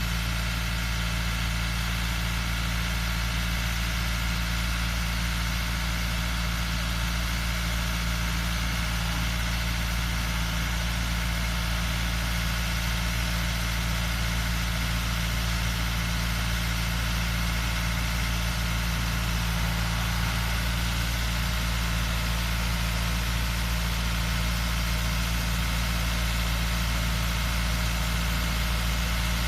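Tractor engine running steadily at idle, with no change in speed.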